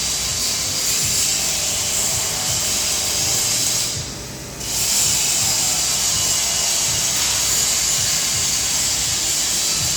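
Steady hissing from a workshop tool at work. It cuts out for about half a second around four seconds in, then starts again.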